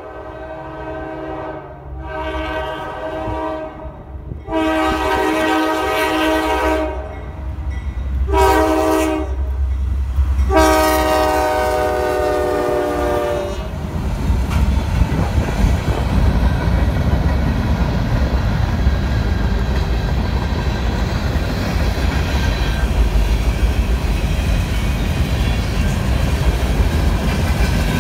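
Norfolk Southern GE C40-9W locomotive 9529 sounding its chime horn for a road crossing: a series of long blasts, a short one and a final long blast. After that the freight train rumbles and clatters steadily over the rails as the locomotive and cars pass close by.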